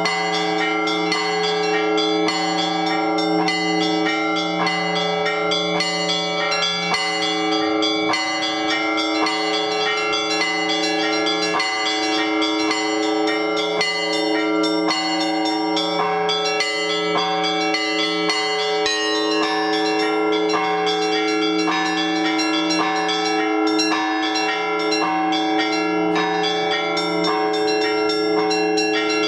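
Orthodox church bells pealing for the liturgy: several bells at different pitches are struck together in a rapid, continuous pattern, with the small bells chiming quickly over the steady hum of the larger ones.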